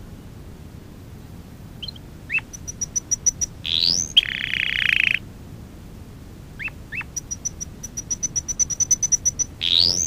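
A domestic canary sings in phrases: a few short chirps, a quick run of high, clipped notes, a rising sweep, then a sustained rolling trill, the loudest part, about four seconds in. After a pause of about a second and a half the chirps return, followed by a longer run of high notes that speeds up, ending on another rising sweep.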